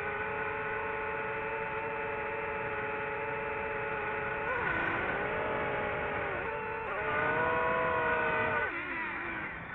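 DJI FPV quadcopter's brushless motors and propellers whining steadily, the pitch dropping and climbing back about halfway through, twice more soon after, and again near the end as the throttle is eased and reapplied.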